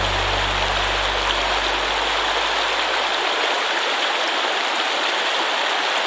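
Mountain stream rushing over rocks: a steady, even hiss of flowing water.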